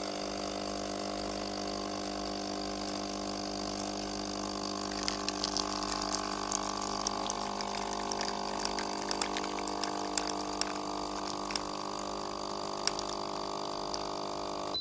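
Destino capsule espresso machine's pump humming steadily as it brews a shot through an adapter of ground coffee. Irregular crackling clicks join the hum from about five seconds in.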